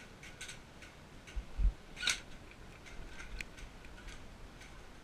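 Scattered sharp ticks and clicks, a louder click about two seconds in, with a couple of dull low thumps just before it.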